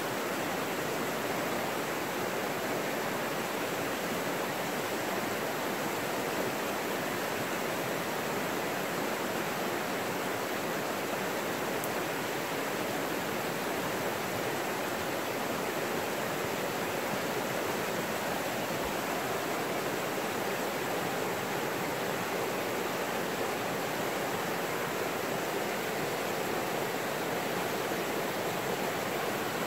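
McKenzie River rushing over shallow rocky rapids: a steady, even rush of water.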